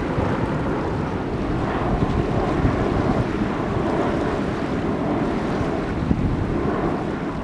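Wind blowing on the microphone, with small waves lapping at a sandy shoreline underneath.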